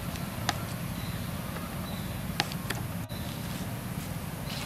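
Outdoor background noise: a steady low rumble with a few sharp clicks and some faint, short high chirps.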